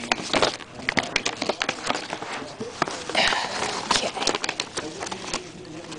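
A folded playmat being unfolded and handled close to the microphone: crinkling and rustling with many sharp ticks, and a longer swish about three seconds in.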